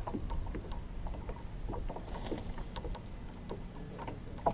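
Small waves slapping against a kayak hull, with a steady low wind rumble on the microphone and scattered light clicks and knocks; a sharper knock comes at the very end.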